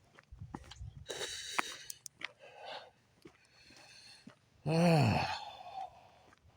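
A man's voiced sigh, falling in pitch, about five seconds in. Before it come crunching footsteps on gravel.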